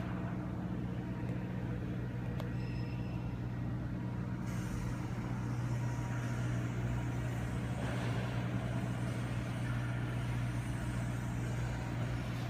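A machine running steadily, a constant low hum with no change in speed.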